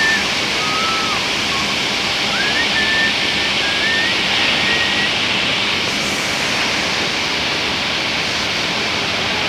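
Capstan winch machine running with a steady, loud rushing noise, and thin, high squeaky tones sliding up and down through roughly the first half.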